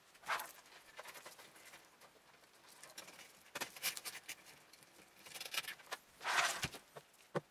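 Hands working cables inside a PC case: scattered light clicks, taps and rustles, with a louder rasping scrape about six seconds in.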